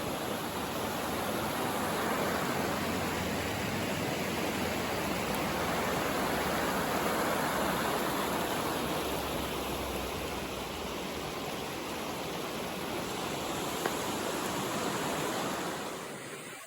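A river running: a steady rush of flowing water, dipping briefly near the end.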